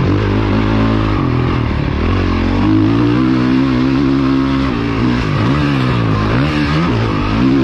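Dirt bike engine under hard throttle: the pitch holds high for a stretch, then drops and climbs back up several times as the throttle is chopped and opened again.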